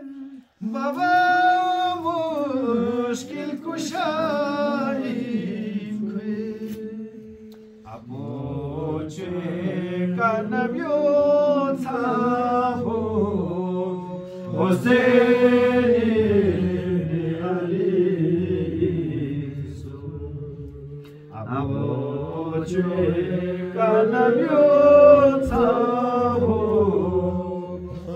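Unaccompanied chanting of a devotional qasida: a voice sings long, bending melodic phrases with no instruments. There are brief breaths or pauses about 8 and 21 seconds in.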